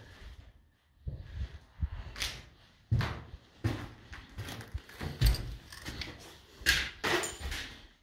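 Footsteps walking across the floor of a large hall, a step about every three-quarters of a second.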